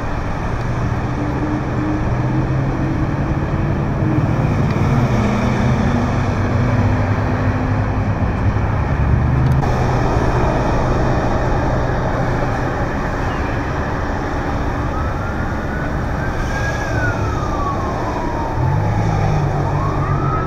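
Freeway road noise from a procession of police patrol cars passing beneath an overpass, with tyre roar and engine hums swelling and fading as each car goes by. From about three-quarters of the way in, a siren wails slowly up, down and up again.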